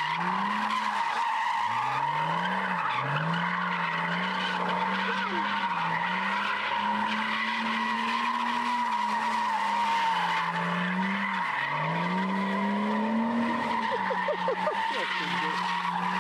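A BMW E36 325tds, with its 2.5-litre turbodiesel straight-six and open differential, is being drifted. The rear tyres squeal with a steady high screech while the engine revs up and down again and again.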